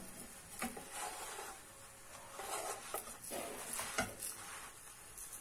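Wooden spatula scraping and tapping against a nonstick frying pan as a cooking gözleme is turned. There are several short scrapes, with a sharp tap about four seconds in.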